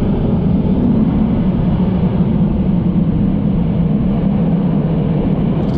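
Boeing 707 jet airliner departing under takeoff power: a loud, steady, deep jet rumble.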